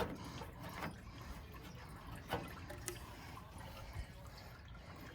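Coolant dripping and trickling from the radiator and its hose connections, with a few scattered light clicks of hand tools.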